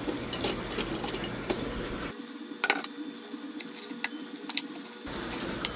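A metal utensil clicks and clinks against the pan and plate a few times as fried chicken is moved, the loudest clink about halfway through. Under it, breaded chicken sizzles steadily in shallow oil.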